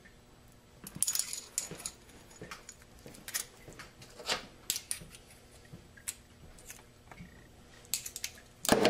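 Small metal parts of a Ford 6R80 automatic transmission clicking and clinking as they are handled, with a louder metallic clank near the end that rings briefly.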